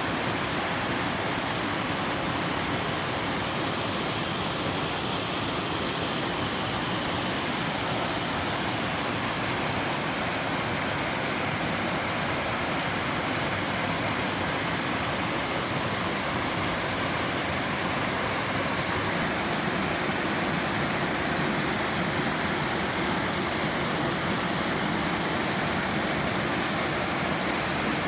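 Small mountain waterfall and stream water falling and rushing over rocks, a steady full rush with no change in level.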